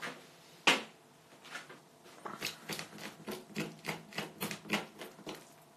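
Metal spoon scraping inside the rib cavity of a raw chicken carcass: one sharp click just under a second in, then a run of short scrapes at two to three a second. The spoon is scraping out the red tissue along the backbone, which would make chicken stock bitter if left in.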